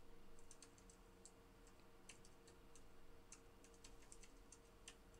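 Faint, irregular clicking of typing on a computer keyboard over a low steady hum.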